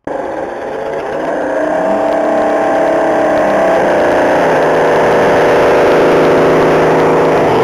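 Radio-controlled scale truck driving toward the camera on asphalt: a steady motor drone that grows louder as it approaches, its pitch dropping slightly about halfway through.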